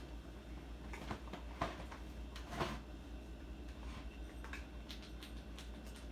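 Scattered light clicks and rustles from handling food packaging and utensils, the loudest about two and a half seconds in, over a steady low hum.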